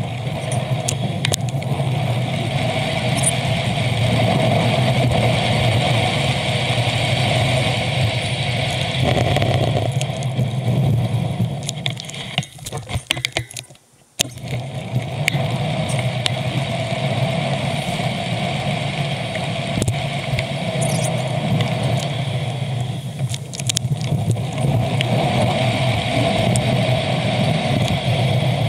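Steady road and traffic noise heard from a moving bicycle, with cars around. It drops away sharply for about a second around halfway through, then comes back.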